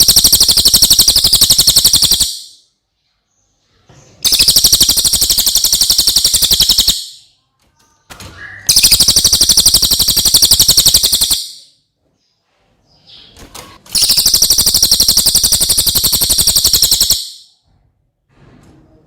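Cililin (Javan pygmy tit) singing: four long, very fast, high-pitched trills of rapidly repeated notes, each lasting about three seconds, with short pauses between them.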